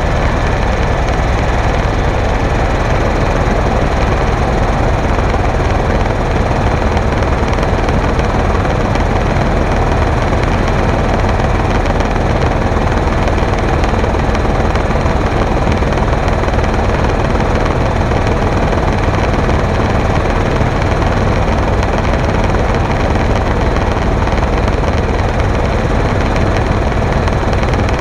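Helicopter in steady flight, heard close up from its side: constant, loud rotor and engine noise that does not change.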